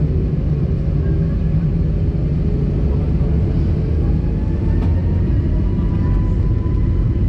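Steady low cabin rumble of an Airbus A320 taxiing, with a faint engine whine that creeps slightly higher in pitch about halfway through.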